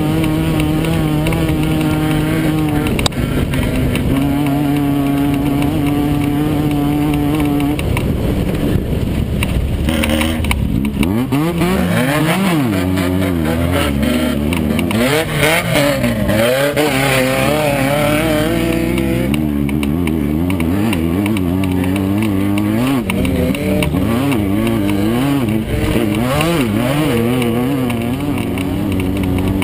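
Volkswagen-powered Class 9 desert race buggy's engine running at a steady pitch for about eight seconds, then revving up and down rapidly as the throttle is worked.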